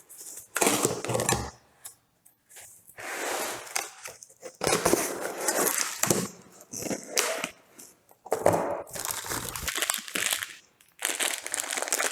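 Packaging being handled and unpacked: a run of crinkling and rustling bursts with short pauses between them, including a brief near-silent gap about two seconds in.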